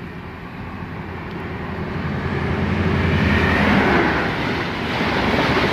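High Speed Train with Class 43 diesel power cars passing through the station: the engine hum and rush of wheels on the rails grow steadily louder over the first three to four seconds as it approaches, then hold loud as it goes by.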